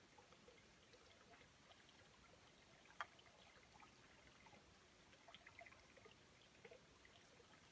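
Near silence: a faint trickle of water with small scattered ticks, and one slightly sharper click about three seconds in.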